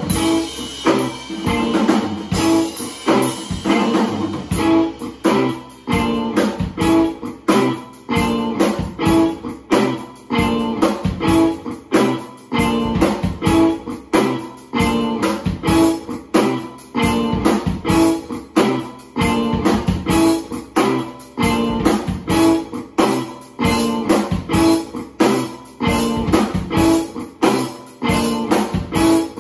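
Drum kit played with a steady beat along with a repeating guitar chord loop.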